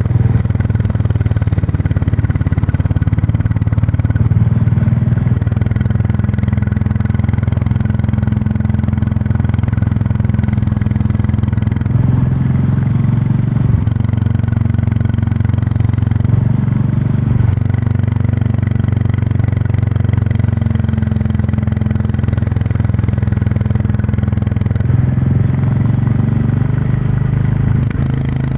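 Royal Enfield Classic 350's single-cylinder engine and exhaust running steadily while under way, its note shifting briefly a few times, about 12, 17 and 25 seconds in.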